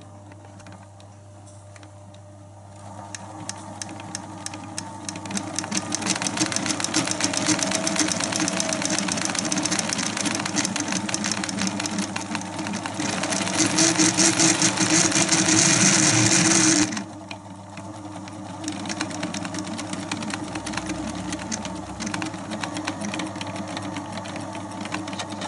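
Pathescope 200B 9.5mm film projector running on its new drive belt, unoiled: after a faint motor hum, the mechanism starts up about three seconds in with a fast clatter that grows louder. It is loudest around the middle, then drops sharply and runs on more quietly, all a bit noisy and squeaky from its dry, not-yet-oiled moving parts.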